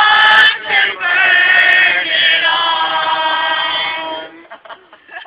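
A group of teenage boys and girls singing together, holding long notes, with a short break just before a second in. The singing ends a little after four seconds in.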